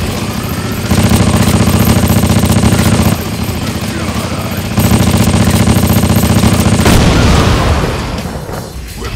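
Film sound effects of rapid automatic gunfire in two bursts of about two seconds each, mixed with action music, fading away near the end.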